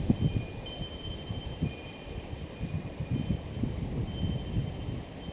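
Wind chimes ringing now and then in a breeze, several clear high tones that start at scattered moments and hang on as they fade. Gusts of wind buffet the microphone underneath, strongest at the start.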